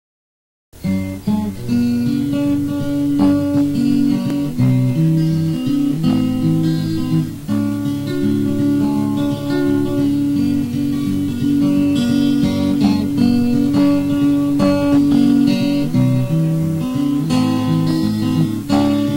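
Acoustic guitar playing a song's instrumental introduction, plucked notes over a steady bass line, starting just under a second in.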